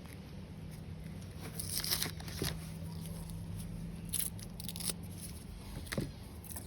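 Crinkly wrapping being handled, in a few short bursts of rustling and crinkling.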